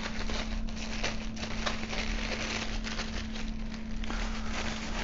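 Plastic packaging wrap crinkling and rustling as it is pulled off a telescope tube in many quick crackles, over a steady low hum.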